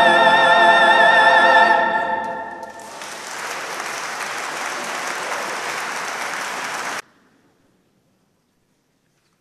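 A female soloist and a men's choir hold a final sung note with vibrato, which fades about two seconds in and rings on in the church. Audience applause follows for about four seconds and cuts off suddenly.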